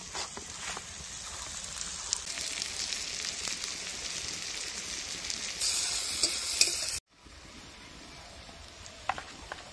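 Sliced onions sizzling in hot oil in a kadai, a steady hiss that grows louder about six seconds in, then cuts off abruptly and comes back quieter. A few light clicks near the end.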